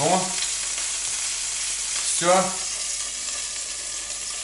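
Frozen pelmeni frying in oil in a frying pan, with steady sizzling and a hard crackling spatter as water still in the thawing dumplings hits the hot oil.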